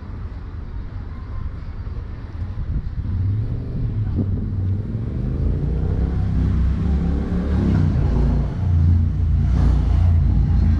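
Street traffic: a motor vehicle running close by, its rumble growing louder about three seconds in.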